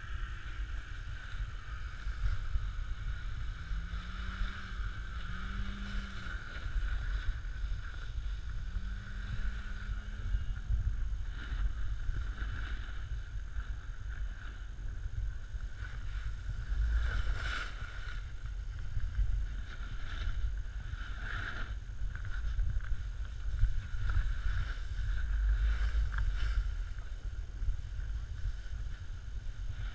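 A snowboard sliding down a snowy slope, heard through a GoPro Hero3 Black's microphone: a steady low rumble of wind buffeting the microphone, with the board scraping over the snow in rougher patches through the second half.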